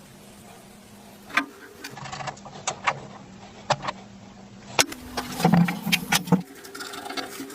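Scattered clicks and knocks of metal parts and hand tools being handled, more frequent about two-thirds of the way in, over a faint low hum.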